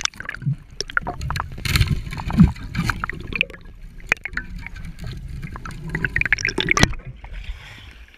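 Water heard from a submerged action camera: muffled gurgling and sloshing with many irregular clicks and knocks over a low rumble, opening with a sharp splash as it goes under. The clicking stops about seven seconds in as the camera comes back up into the air.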